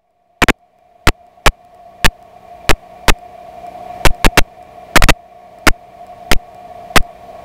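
Electrical dropout on the recording's audio line: the usual in-flight sound is gone, leaving a faint steady hum that slowly grows, broken by sharp, loud crackles and pops at irregular intervals, about two a second.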